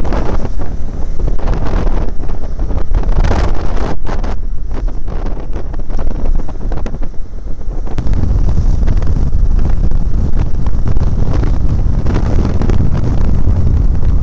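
Wind buffeting the microphone of a motorcycle riding at speed, a loud, steady rushing with the bike's running noise beneath it. The low rumble grows heavier about eight seconds in.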